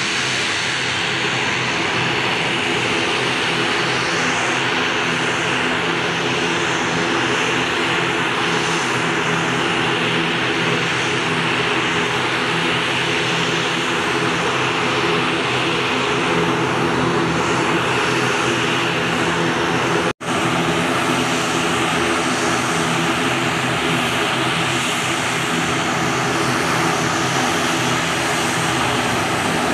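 ATR 72's twin turboprop engines running at taxi power: a loud, steady propeller drone made of several even tones, with a hissing whine on top. The sound cuts out for an instant about twenty seconds in.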